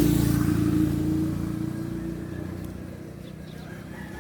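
A passing motor vehicle's engine running steadily, loudest at first and fading away over about two seconds.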